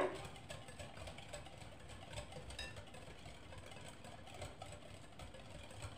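Faint, scattered light clicks of a hand whisk stirring cake batter in a bowl as oil is worked in, over a low steady background hum.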